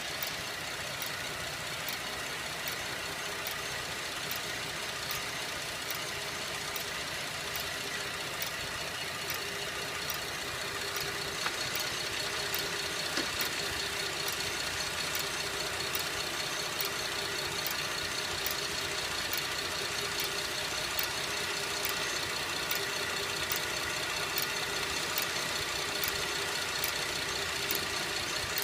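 2011 Buick LaCrosse CXL engine idling, with a slow, regular metallic tick a little more than once a second. The tick runs slower than the engine itself; the owner reports it speeds up on acceleration.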